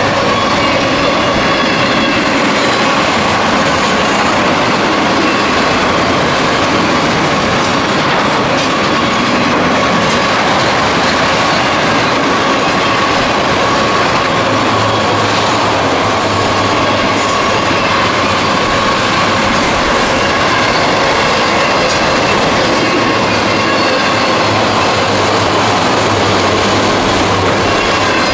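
Freight train cars rolling steadily past at close range: a loud, even rumble of steel wheels on rail, with a steady high-pitched whine running through it. A low hum comes in about halfway through and fades near the end.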